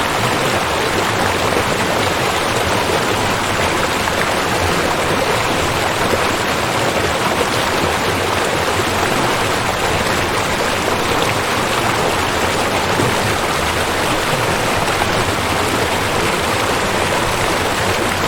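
Waterfall, water falling and splashing in a steady, loud rush that does not change.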